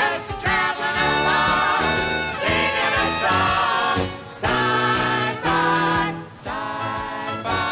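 A bouncy children's song: several voices singing together in phrases over an instrumental accompaniment.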